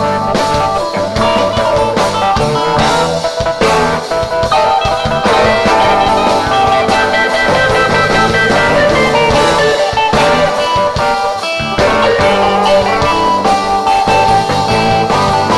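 Live rock band playing an instrumental passage: an electric guitar lead of held, bending notes over a busy drum kit and bass.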